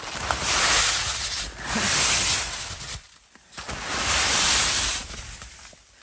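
Wet snow sliding off the fabric of a Hilleberg Nammatj 2 GT tent as the wall is pushed from inside: three rushing slides, each about a second long, with short pauses between.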